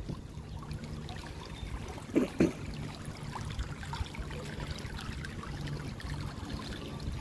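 Outdoor swimming pool ambience: water trickling steadily, under a steady low hum, with two brief thumps about two seconds in.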